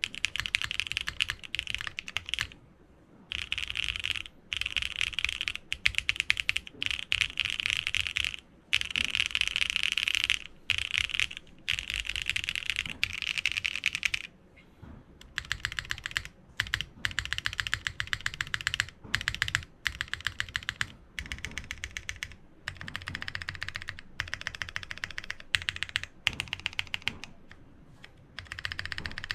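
Fast typing on a TGR Jane V2 ME custom mechanical keyboard with a polypropylene plate, top-mounted: a dense run of high-pitched clacky keystrokes in bursts of a few seconds with short pauses between.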